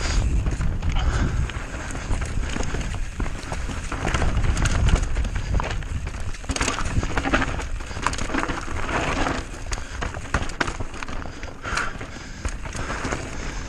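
Mountain bike riding down a dirt trail: tyres hissing over dirt and gravel, the bike clattering in many short knocks over roots and bumps, with wind buffeting the microphone.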